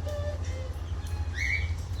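Aviary parrots chirping and calling in short scattered notes, with a louder rising call about one and a half seconds in, over a steady low hum.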